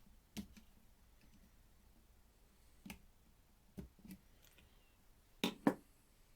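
Hands working wires and plastic parts into a Bosch router's housing: a few scattered clicks and knocks, the loudest two in quick succession near the end.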